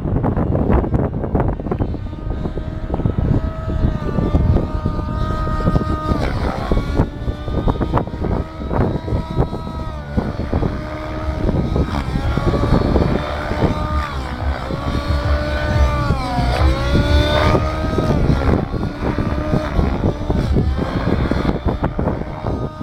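Radio-controlled model aircraft's motor whining overhead, its pitch repeatedly dipping and rising as the throttle changes, over heavy wind buffeting the microphone.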